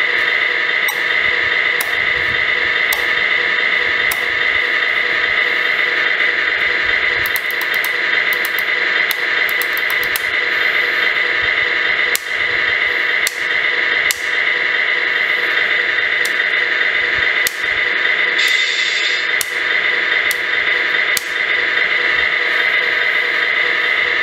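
Simulated diesel truck engine idling, played by the Tamiya Grand Hauler RC truck's onboard sound unit through its small speaker: a steady, tinny drone with faint scattered clicks, and a brief hiss about eighteen seconds in.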